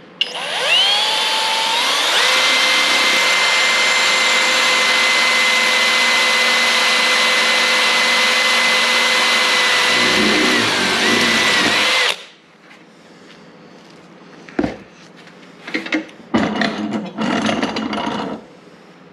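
Kobalt cordless drill boring an 11/32-inch bit through a metal fitting clamped in a vise: the motor whine rises as it spins up, runs steady while cutting, then cuts off suddenly about twelve seconds in. A few knocks and rattles follow as the drilled piece is handled.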